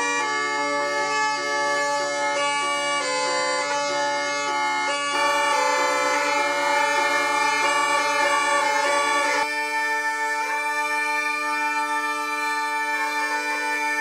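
Sicilian zampogna (ciaramedda) bagpipe playing a melody on its two chanters over steady drones. The deepest drone cuts off suddenly about two-thirds of the way through, while the melody carries on.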